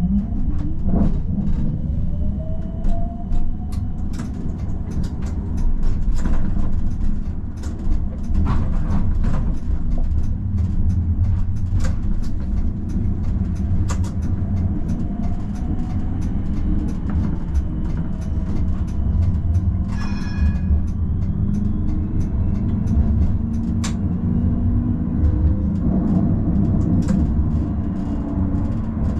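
Electric city tram running on its rails: a steady low rumble of wheels on track with many short clicks and knocks, and the faint whine of the traction motors rising in pitch as it gathers speed, first about a second in and again later.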